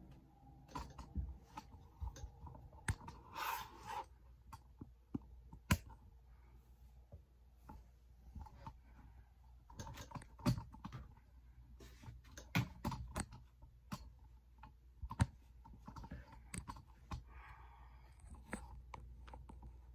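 Handling noise from a camera being fiddled with and propped up: scattered, irregular clicks, taps and knocks with a brief rustle a few seconds in, the sharpest knocks about six and fifteen seconds in.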